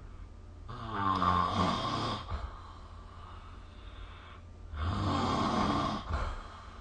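A person snoring: two snores about four seconds apart, each lasting about a second and a half, over a steady low hum.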